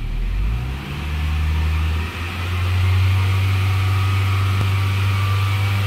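A 2000 Toyota Camry's 2.2-litre four-cylinder engine is revved up from idle and held steady at about 3,000 rpm. It rises in pitch about half a second in and again near two seconds in, then holds.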